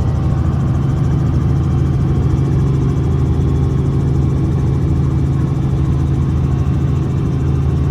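Boat engine running steadily: a loud, even low drone that does not change pitch.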